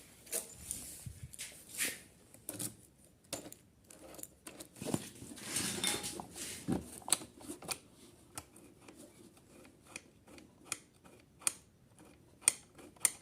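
Irregular sharp metallic clicks and clatter of tools and small metal parts being handled during motorcycle reassembly, with a brief scraping rustle about five to six seconds in.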